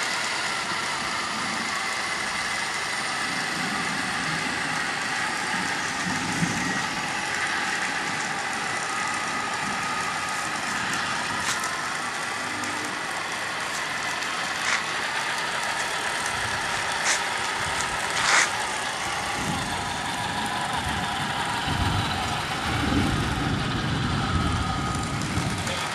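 Engine sound effect from a 1/16 M1A2 Abrams RC tank's on-board MP3 sound module, played through its small speaker: a steady engine whine over a hiss. A few sharp clicks come in the middle, and low rumbling swells come in the second half.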